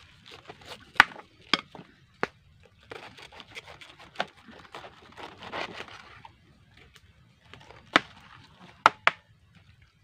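A knife cutting through a raw cabbage head on a wooden cutting board: crisp crunching of the leaves through the middle, and sharp cracks at about a second, two seconds, four seconds and three more near the end as the head splits.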